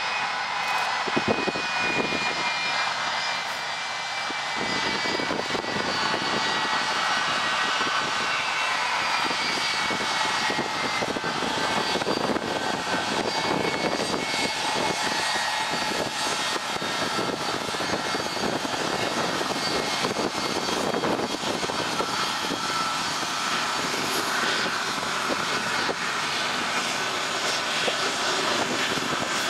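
Boeing C-17 Globemaster III's four Pratt & Whitney F117 turbofans running on the ground as it taxis: a steady jet whine with several high tones over a dense rush of noise, one tone sliding slowly down in pitch over the first dozen seconds.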